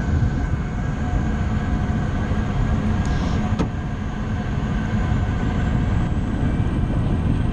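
Engine and propeller of a small single-engine high-wing plane running steadily as it taxis across a grass airfield: a constant drone with a rushing, buffeting noise over it.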